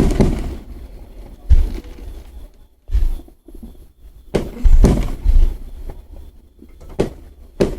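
Fireworks bursting overhead: a string of sudden booms, about seven or eight of them, each with a deep rumble. The loudest come in a quick cluster about four and a half to five seconds in.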